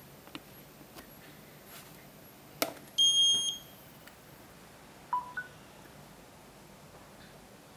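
A smartphone is set down on a Qi wireless charging pad with a light click, followed by a high beep of about half a second as wireless charging starts. About two seconds later comes a short two-note rising chime.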